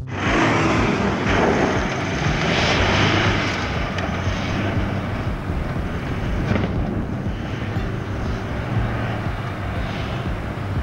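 4x4 pickup truck driving up a loose gravel mountain track, its engine and tyres on the stones loudest at first and slowly fading as it pulls away.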